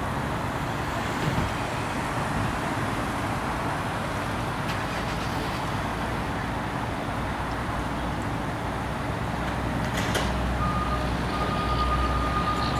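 Fire engine's diesel engine idling steadily. A little over ten seconds in, a steady high electronic warning tone starts and holds.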